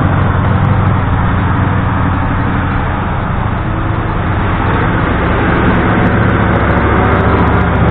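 Heavy diesel engine running steadily at a constant speed, slightly quieter in the middle, from the dump truck or the excavator that loads it.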